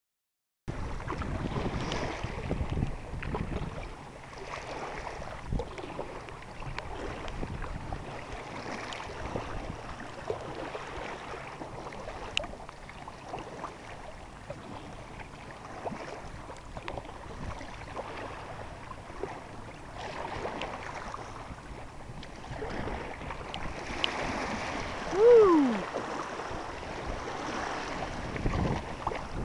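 Paddling a Sevylor K2 Pointer inflatable kayak: water sloshing and paddle splashes under steady wind noise on the microphone. About 25 seconds in, a loud, short squeak falls in pitch.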